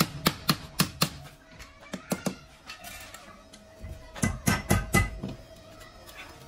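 Wooden mallet striking a paintbrush's metal ferrule held in a jig on a steel stand. The sharp knocks come in quick runs: about four in the first second, a pair around two seconds in, and four more a little past the middle.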